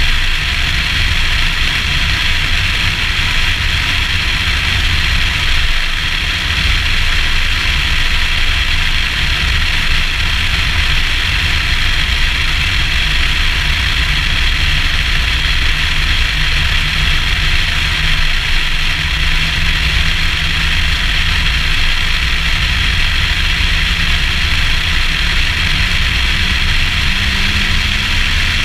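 Steady wind and road noise from a Nissan Skyline ER34 cruising at speed, picked up by a camera mounted on the car's outside, with a heavy low rumble. A faint steady engine tone runs under it and rises a little near the end.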